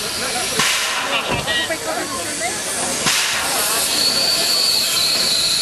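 Small steam locomotive hissing steam steadily, with two sudden louder gushes of steam, about half a second in and again about three seconds in. A thin, steady high-pitched tone sounds near the end.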